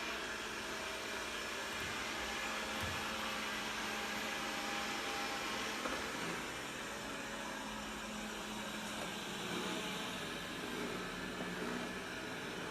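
Steady whirring hiss of background noise, even in level throughout, with no distinct events.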